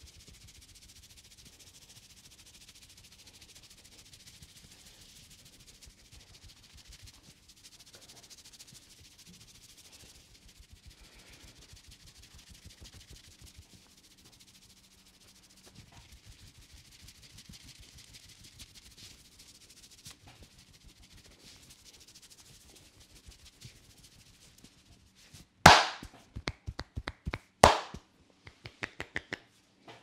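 Fingers rubbing through wet hair on the scalp, a soft steady rustle. Near the end, a run of sharp loud cracks from the hands at the head, the two loudest about two seconds apart with quicker smaller ones between and after.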